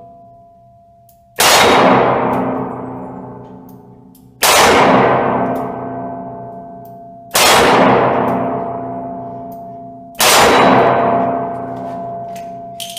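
Four shots from a Smith & Wesson M&P 340 snub-nosed revolver firing 130-grain FMJ .38 Special rounds, spaced about three seconds apart as slow aimed fire. Each sharp report is followed by a long ringing decay that lasts a couple of seconds.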